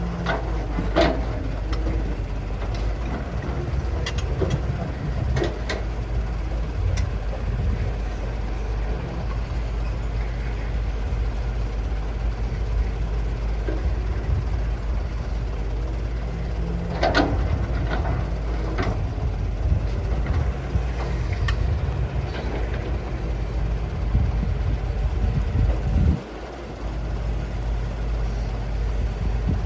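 Excavator's diesel engine running steadily under load, with a few sharp metallic clanks scattered through. The engine note drops suddenly near the end, then picks up again.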